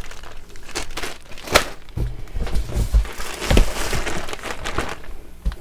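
Plastic packaging crinkling and crackling as packaged linens are handled, with a few dull bumps around the middle.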